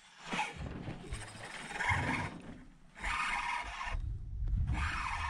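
Fishing reel being cranked against a hooked fish, in bursts of about a second with short pauses, over a low rumble of wind on the microphone.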